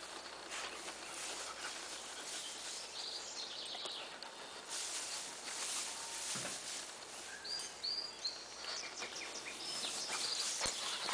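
Dry cut grass rustling as dogs tramp and dig through the heap, with birds chirping now and then in the background.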